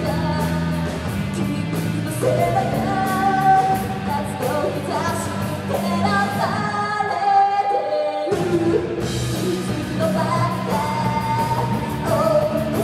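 Rock band playing live: a girl singing lead over electric guitars, bass and a drum kit. About seven seconds in, the bass and drums drop out for a second and a half under the voice, then the full band comes back in.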